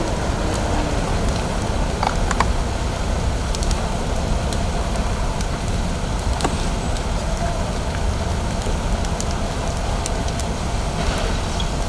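Fire apparatus engines running steadily at a burning building, with scattered sharp crackles and pops.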